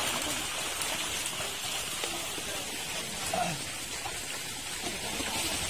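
Steady rain-like patter of splashing water from a net crammed with milkfish thrashing in the shallows.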